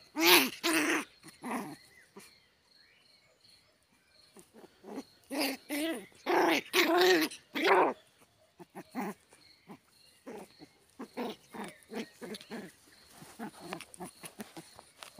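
Small puppy yapping and barking in short bursts while play-biting at a hand. There are a few loud yaps at the start and a cluster around the middle, then quicker, fainter yips toward the end.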